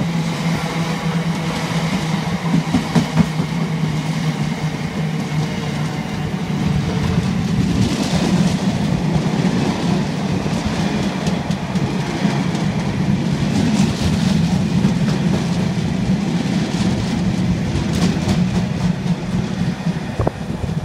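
Freight train of bogie hopper wagons rolling past at speed: a steady rumble of wheels on rail with occasional clatter, easing off as the last wagon goes by at the very end.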